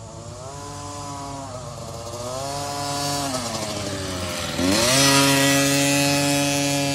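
Small youth dirt bike's engine buzzing as it approaches, revs wavering up and down, then dipping briefly and picking up to a steady higher pitch as it passes close, loudest about five seconds in.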